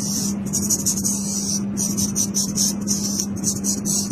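Straight razor scraping stubble off the scalp and nape in a run of short strokes, each a crisp high rasping hiss with brief gaps between, over a steady low hum.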